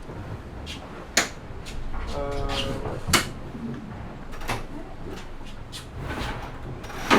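Scattered sharp knocks and clunks of gear aboard a racing sailboat, over a low steady background, with a brief voice about two seconds in.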